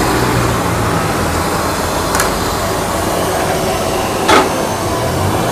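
Metal tongs clinking against a stainless steel serving tray twice, a faint clink about two seconds in and a sharper one past four seconds, over a steady rushing background noise.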